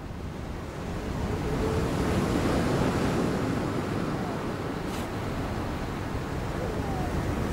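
Sea surf washing on a boulder-and-pebble shore, swelling over the first couple of seconds and then running on steadily, with a faint click about halfway through.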